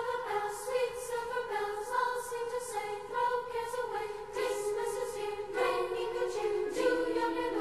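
Choral music: a choir singing slow, held chords that change every second or two.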